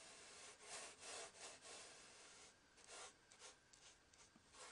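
Paintbrush rubbing across watercolour paper in a run of short, faint, rasping strokes, fainter after about two and a half seconds.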